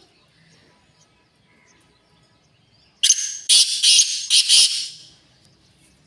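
Black francolin giving one loud, harsh call of about five quick notes, starting about three seconds in and lasting about two seconds.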